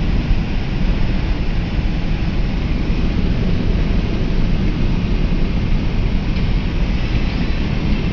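Steady rumble and hiss of a car driving through a rainstorm: road and rain noise with no distinct events.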